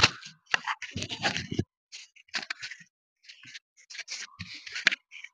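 Scattered short scrapes, clicks and rustles at irregular intervals, with brief drops to silence between them.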